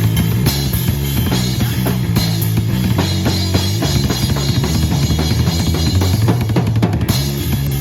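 Live rock band playing: a drum kit with kick, snare and rimshots drives over a steady bass guitar line, with a quick run of drum hits near the end.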